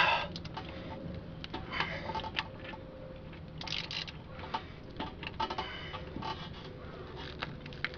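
Hand ratchet clicking in short, uneven runs, with metal clinks and scrapes, as a piston cube tool on an extension pushes and turns the slotted rear brake caliper piston of a 1993 Honda Prelude back into its bore. There is a louder clack right at the start.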